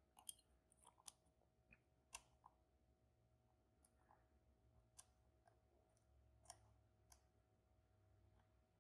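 Faint, irregular clicks of a lock pick working the pins inside a Banham M2002 lock, a few sharper ticks scattered among quieter ones.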